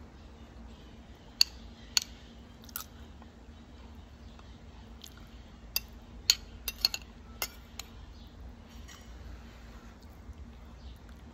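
Metal spoon clinking and scraping against a glass plate while scooping up rice and chicken: a few sharp clinks in the first three seconds, then a quick cluster of them between about six and eight seconds in, with soft chewing in between.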